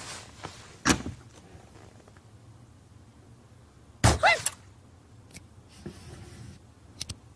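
Sparse cartoon sound effects over a quiet background: a sharp click about a second in, a short loud burst with a wavering squeaky tone about four seconds in, then a few faint clicks near the end.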